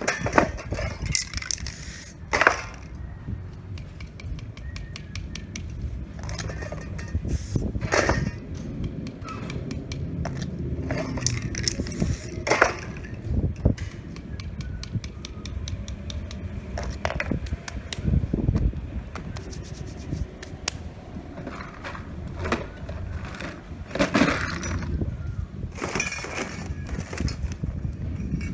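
Spray-paint artist working with aerosol cans and tools: scattered clinks and taps and a few short hisses every few seconds, over a steady low rumble.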